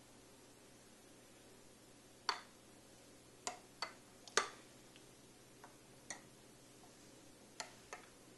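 A metal utensil clinking lightly against a glass baking dish, about eight irregular taps while it stirs and mashes a gelatin mixture.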